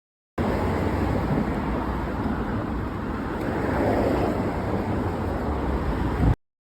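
Steady rushing noise, heaviest in the low end, that cuts in suddenly and is cut off about six seconds later.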